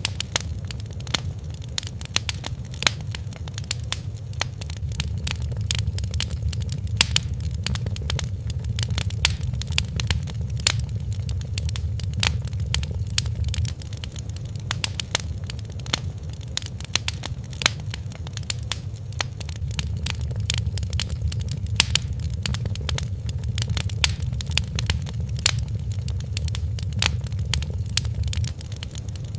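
Fireplace fire crackling: frequent sharp pops and snaps over a steady low rumble.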